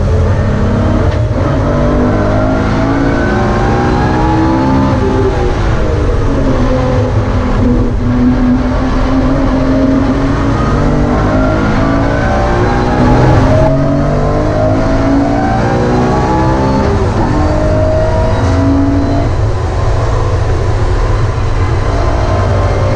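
BMW E46 M3's S54 straight-six engine, heard from inside the stripped cabin, pulling hard. Its pitch climbs through the gears with brief breaks at the upshifts and drops when it lifts off about five seconds in, before climbing again.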